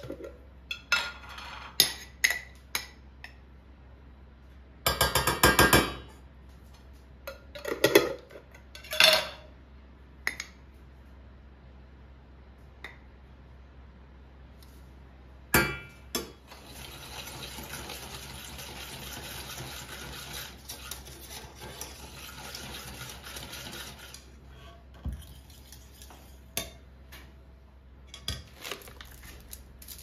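A metal spoon clinking and scraping against glass jars and a small stainless-steel saucepan as ingredients are spooned into milk. About halfway in comes roughly eight seconds of steady stirring in the pan, followed by scattered light clinks.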